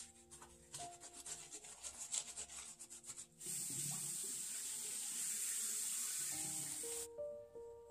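A lathered shower puff squeezed and rubbed between hands, a quick run of wet, crackly squishing strokes. About three and a half seconds in, the faucet runs steadily into the sink for a few seconds, then stops suddenly near the end. Soft background music plays throughout.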